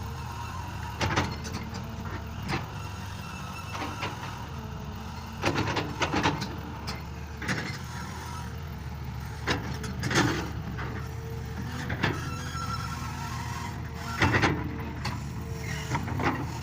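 Excavator's diesel engine running steadily, with sharp clanks and knocks every second or two from the machine as it works.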